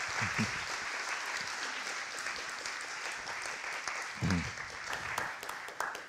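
Audience applauding, tapering off near the end, with a voice heard briefly twice.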